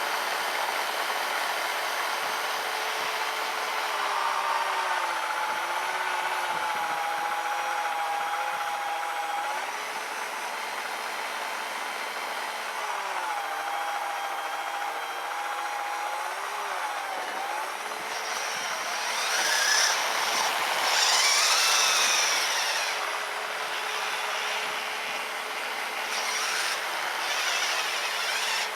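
Electric motor whine from a radio-controlled truck and its 3D-printed snowblower, whose brushed 550 motor drives the auger. The pitch wavers and dips several times. About two-thirds of the way through it grows louder, with a higher whine rising and falling and more hiss.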